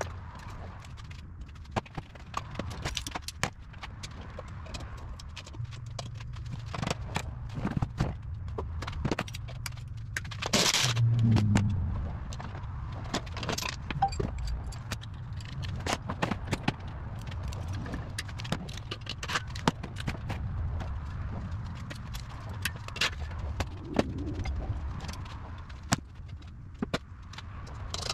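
Metal clinks, rattles and scrapes of tools and parts as a mini bike frame is taken apart, with a louder rushing burst lasting about a second about ten seconds in.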